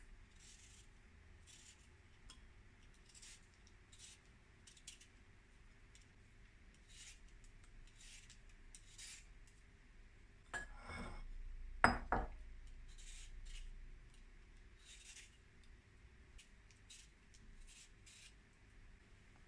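Kitchen utensils and dishes being handled: scattered light scrapes and ticks, with a louder ringing clink and two sharp knocks a little past halfway.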